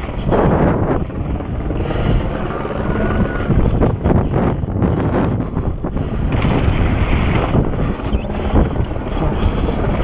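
Wind buffeting an action camera's microphone as a mountain bike rides fast down a steep dirt ridge, with its tyres running over loose dirt and rock and scattered knocks from the rough ground.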